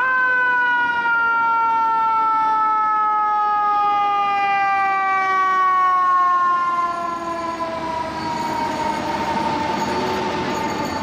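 FDNY fire engine's mechanical siren, wound up just as it begins and then left to coast down in one long, slowly falling wail. It grows somewhat quieter after about seven seconds.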